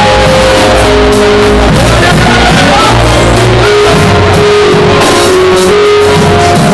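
Loud band music with guitar and drums, held notes shifting pitch every second or so.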